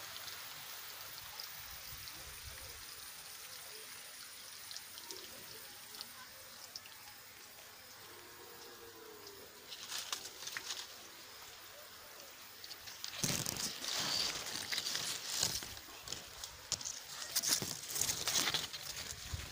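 Dry sugarcane leaves rustling and crackling as they brush against the phone pushed through the cane, faint at first, with a brief patch about halfway and loud, dense crackling through the last third.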